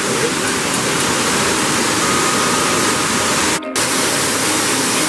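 Steady rushing of an underground waterfall inside a cave, a loud even hiss of falling water, broken by a momentary gap about three and a half seconds in.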